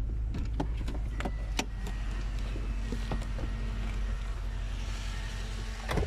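Car engine running, heard from inside the cabin as a steady low rumble, with a few light clicks and knocks. The rumble drops away at the very end.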